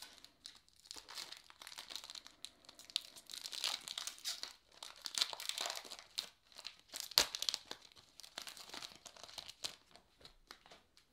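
Foil wrapper of a 2008 Bowman Chrome baseball card pack being torn open and crinkled as the cards are slid out, with one sharp crackle about seven seconds in, the loudest moment.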